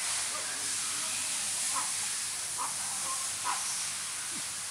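Steady high hiss of open-air background noise, with a few faint short high notes about a second apart.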